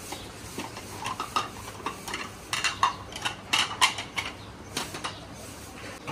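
Stacks of plates clinking and clattering as they are picked up, set down and stacked on a table: a run of sharp clinks, loudest and thickest in the middle.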